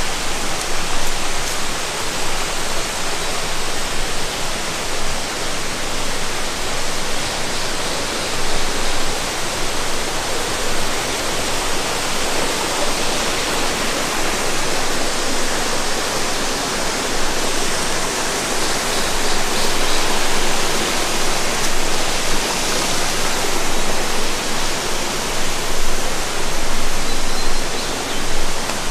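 Steady rush of flowing water, an even noise with no break.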